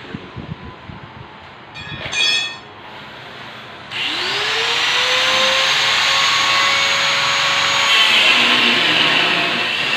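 Angle grinder switched on about four seconds in, its whine rising as the disc spins up. It then grinds into the metal window grill from about eight seconds in. Before that there are a few knocks and a brief, loud, high-pitched sound about two seconds in.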